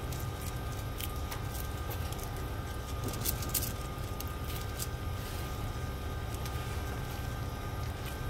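A steady low machine hum with two faint steady tones, overlaid by scattered light clicks and rustles, a little busier about three seconds in, as live prawns and bamboo skewers are handled.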